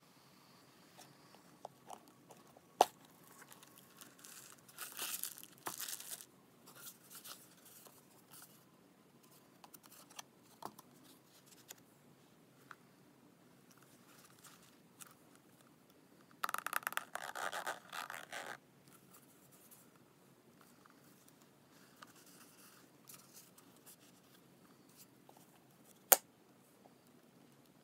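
Handling of a hard-shell crystal clutch bag and its packaging: soft scattered clicks and rubbing, two bursts of crinkling about five seconds in and about sixteen seconds in, and two sharp clicks, one about three seconds in and one near the end.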